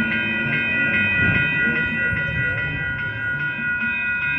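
Electronic railroad crossing bell ringing in a rapid, steady repeat, the warning that a light-rail train is approaching the crossing. A low traffic rumble runs underneath.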